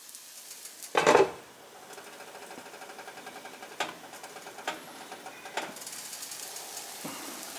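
Spanish omelette of potatoes and egg sizzling in olive oil in a lidded frying pan, with a fast even pulsing and a few sharp ticks. A brief louder sound about a second in.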